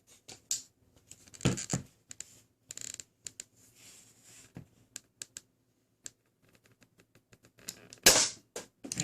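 Plastic clicks and rattles of a Dart Zone Pro Mk2 spring-powered foam dart blaster being handled and loaded, with two louder knocks about a second and a half in. Near the end comes the loudest sound, a single sharp shot as the blaster fires a dart.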